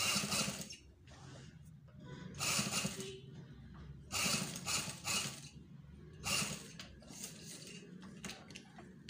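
Industrial sewing machine stitching a band collar onto a kameez neckline, running in five short bursts of up to about a second each and stopping between them.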